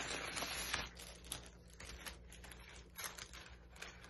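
Plastic packaging crinkling and rustling, loudest in the first second, then light scattered clicks and rustles as a hard clear-plastic laptop case piece and paper inserts are handled.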